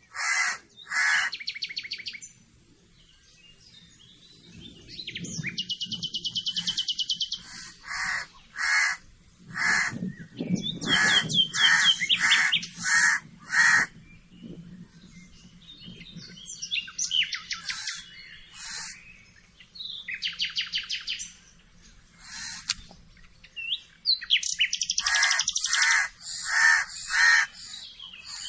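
Several birds calling: bouts of short harsh calls repeated a little under once a second, mixed with rapid high chattering trills, with brief pauses between bouts.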